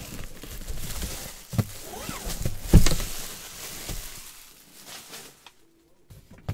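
Clear plastic shrink wrap crinkling and rustling as it is pulled off a cardboard box. Two thumps from the box being handled, the louder one about three seconds in.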